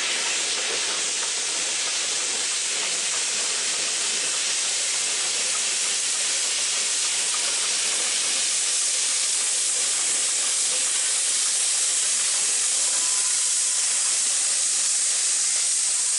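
Steady hiss of steam from Victorian Railways G42, a narrow-gauge Garratt steam locomotive, crossing a timber trestle bridge with no distinct exhaust beats.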